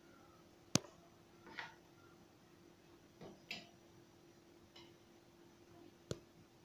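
Steel spoon clicking against a steel bowl twice, about five seconds apart, with soft scrapes and squelches in between as halved boiled eggs are pushed into a thick mustard-spice paste and coated.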